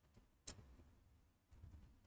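Near silence, with one faint click about half a second in.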